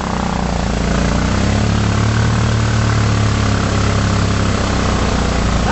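A vehicle's engine running steadily at an even, low speed, a little louder from about two seconds in.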